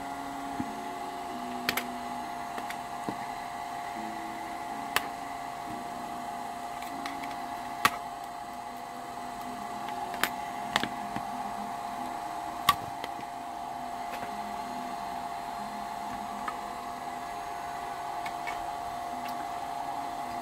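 Sharp clicks and snaps, about half a dozen at irregular intervals, as an HTC One M8's housing is pried apart with a plastic pick and a metal pry tool. A steady hum runs underneath.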